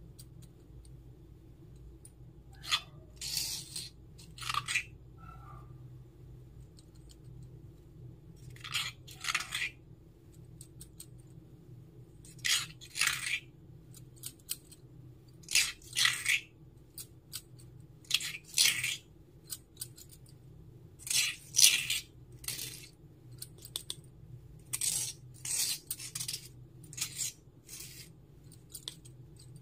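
Small metal spoon scraping and clinking against a terracotta pot while scooping idli batter, in short sharp strokes, often paired, every few seconds.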